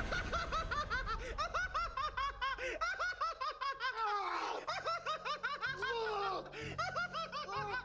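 A man laughing hard, a long unbroken run of quick ha-ha syllables, about four or five a second.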